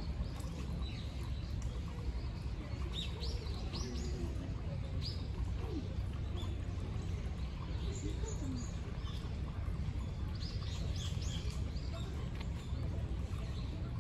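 Small birds chirping: short, high calls in scattered groups of two or three, over a steady low rumble of background noise.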